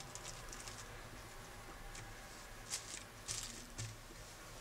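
Faint handling noise from gloved hands at a workbench: a few short, soft rustles, the loudest in the second half.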